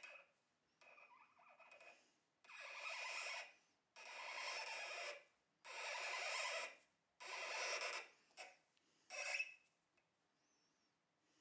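A hand tap turned with a tap wrench, cutting a thread into a metal bar held in a vise: a dry metal-on-metal rasp with each turn, about five strokes roughly a second apart, ending a little after nine seconds in.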